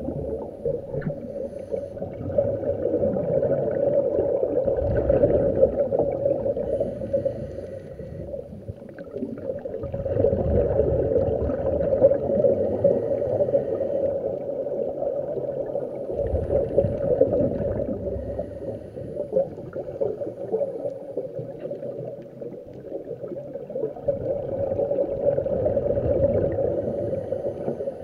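Scuba breathing through a regulator heard underwater through a camera's waterproof housing: exhaled bubbles gurgle and rumble, muffled, swelling and fading in slow surges about every seven seconds.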